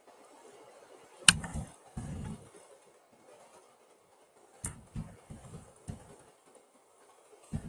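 A few sharp clicks, one about a second in and another midway, each with short dull low thumps around it, over faint steady hiss.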